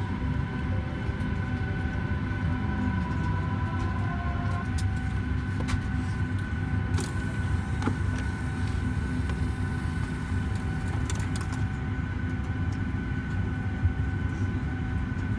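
Steady low cabin hum inside a parked Boeing 737-800 before pushback, with a thin steady whine over it and a few faint clicks.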